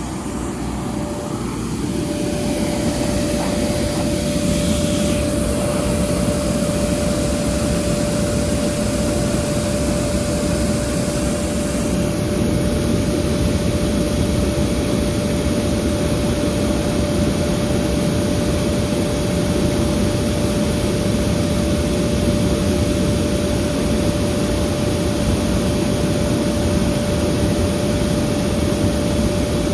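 FMC M10000 30-ton aircraft ground air-conditioning unit running with its engine and compressor on and cooling: steady machine noise with one constant whine. It grows louder over the first couple of seconds, then holds steady.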